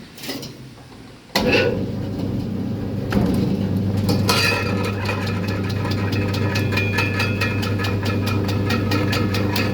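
A tuber chip-slicing machine starts up about a second and a half in and runs steadily with a low hum. A rapid, even ticking from the cutter comes in after a few seconds and keeps going.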